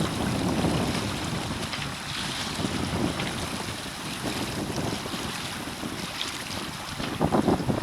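Wind rumbling on the microphone and water washing against the hull of a sailboat under way, with a louder rush of wind and water near the end.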